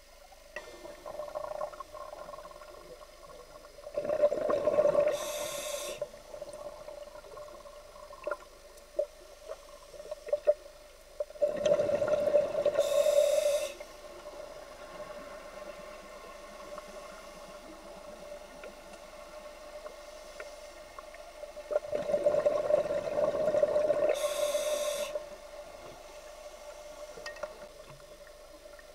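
A scuba diver breathing through a regulator underwater: three loud bursts of exhaled bubbles, each lasting two to three seconds, about eight to ten seconds apart. Quieter spells in between carry small clicks and a faint steady hum.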